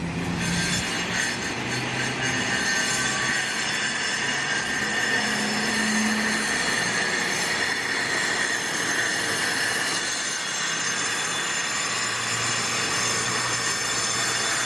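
Steady mechanical noise with several high, squeal-like tones held over it.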